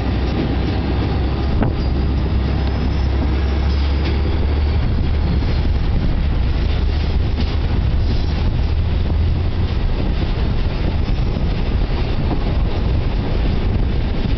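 Diesel shunting locomotive working through a rail yard: a steady low engine drone that eases a little after about nine seconds, with rail and wheel noise and a few light clanks.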